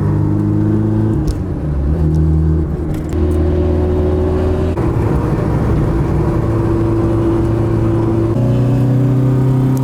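Car engine running while driving, its pitch holding steady and then changing in steps several times as the revs change.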